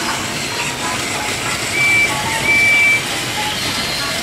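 Plarail battery toy trains running on plastic track, a steady whirring and rattling, with two short high steady beeps a little after a second and a half and again around two and a half seconds.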